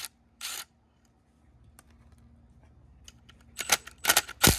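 A few sharp metallic clicks and clinks of hand tools, sparse at first and bunched near the end, as work begins on the dirt bike's oil filter cover. A brief rustle comes about half a second in.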